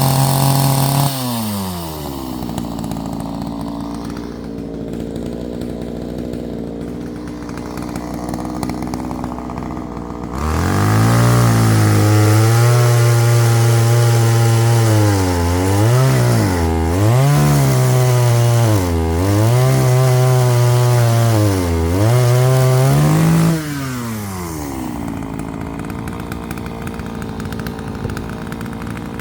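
Two-stroke chainsaw cutting firewood. It drops to idle about a second in, then revs up and runs at high speed, its pitch sagging several times as the chain bites into the wood. Near the end it drops back to idle.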